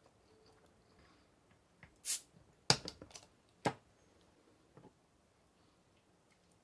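Porcelain plate and chopsticks set down on a wooden table: a short scrape, then a sharp clack, a few small clicks, and a second clack about a second later.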